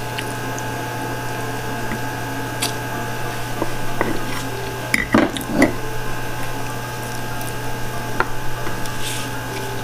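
Close-up eating sounds: a person chewing a mouthful of food with wet, squishy mouth noises, with a few louder clicks and smacks a little past halfway, over a steady low hum.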